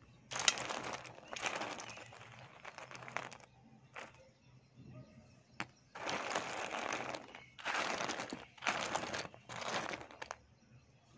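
Dry grey clay chunks being stirred and scooped by hand in a metal bowl: a crisp clattering rustle of shards knocking together. It comes in a long spell at the start, a lull with a couple of single clicks, then several shorter bursts.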